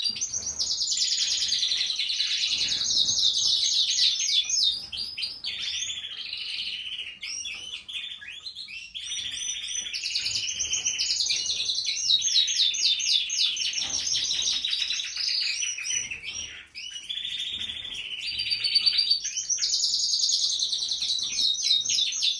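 Domestic canary singing: long runs of rapid rolling trills and repeated chirping notes, easing briefly around a third of the way in and again shortly after the middle.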